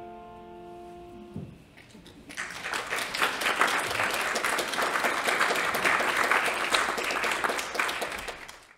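The last chord of a grand piano and violin piece fades and stops about a second and a half in. From about two seconds in, an audience applauds until it cuts off abruptly at the end.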